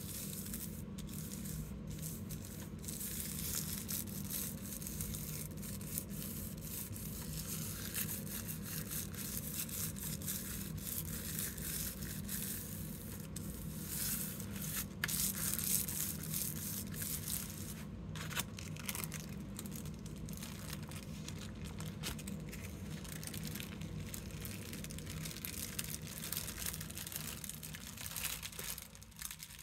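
Fingers and palms rubbing thin artist tissue paper over an inked gel printing plate, burnishing it down onto the plant stems and leaves beneath: a continuous scratchy rustle and crinkle of skin on paper. Near the end the tissue is peeled up off the plate.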